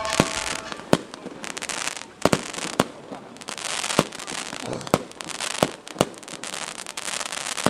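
Fireworks going off: about eight sharp bangs spaced roughly a second apart, between stretches of crackling hiss.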